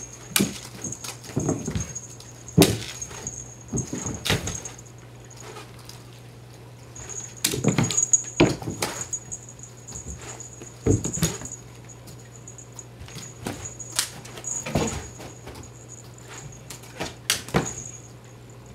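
Cats leaping and landing on a carpeted floor while playing with a bird-on-a-stick wand toy: about a dozen irregular thumps and scuffles, some in quick clusters, with gaps between them.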